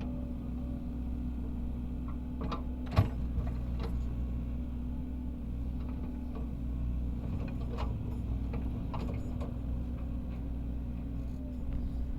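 Caterpillar 307E2 excavator's diesel engine running steadily, with scattered clicks and clanks and one sharp knock about three seconds in.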